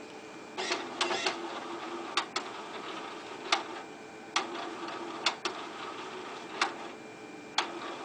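Point-of-sale receipt printer feeding and reading a personal check in its check slot. A motor whirs steadily under about a dozen sharp clicks and clacks at uneven intervals as the check's account line is read.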